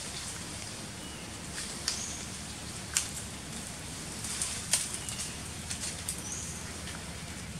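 Forest ambience: a steady hiss with a few sharp clicks, the loudest about three seconds in, and a few brief high chirps.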